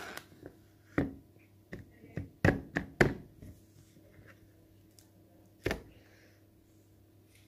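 Hands handling an unwrapped Milka Whole Nuts milk chocolate bar: a handful of sharp snaps and knocks, the loudest clustered around two and a half to three seconds in, with one more near six seconds.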